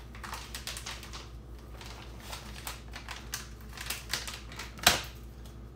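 Plastic pouch of sun-dried tomatoes being handled: a run of small, irregular clicks and crinkles, with one sharper click about five seconds in.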